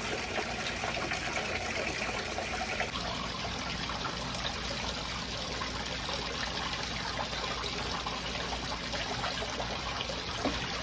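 Water running steadily down a recirculating micro sluice over its dream mat, an even trickling flow. A light knock sounds near the end.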